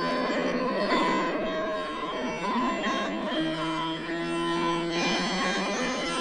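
Experimental music: a dense texture of many held and wavering pitched tones. A low steady tone enters about three and a half seconds in and stops about a second and a half later.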